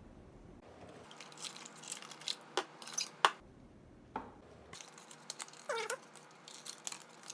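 Packaging being handled during an unboxing: rustling and a series of sharp knocks, the loudest just after three seconds in. A short wavering squeak comes near six seconds.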